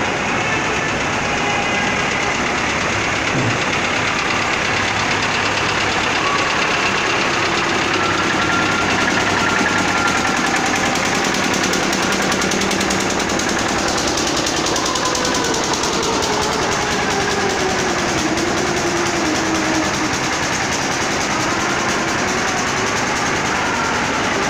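An engine running steadily and loudly, with a few faint wavering tones above it.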